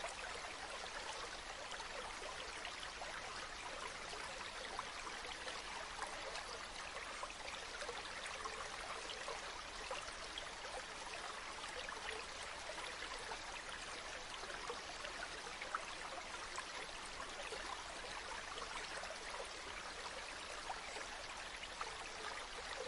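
Running water flowing steadily, with a dense patter of small trickles and gurgles.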